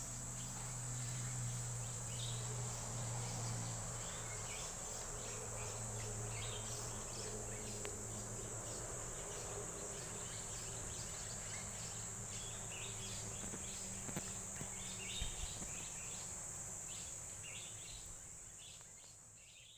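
Insects trilling in a continuous high-pitched drone, with many short chirps over it and a low steady hum underneath; the sound fades out near the end.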